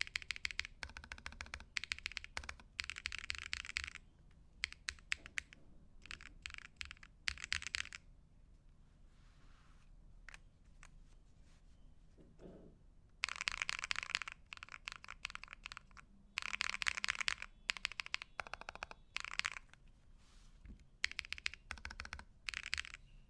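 Custom mechanical keyboard being typed on while resting on a fabric desk mat: runs of rapid key clacks a few seconds long, broken by short pauses, with a pause of about five seconds near the middle.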